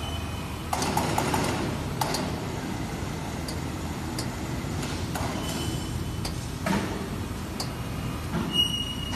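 Spiral bending machine running: a steady motor hum with intermittent metallic scraping and clatter as a metal profile is rolled through the forming rollers and curls into a ring.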